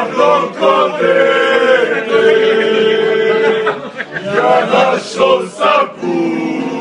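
A group of men singing a song together in unison, loud and rough. One long note is held about two seconds in, followed by shorter, choppier phrases.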